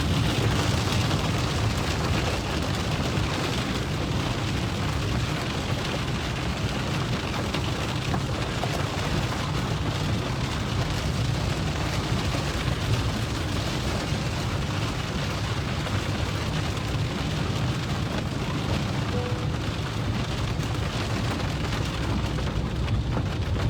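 Steady rain and a low rumble of road and engine noise, heard from inside a moving vehicle in a thunderstorm.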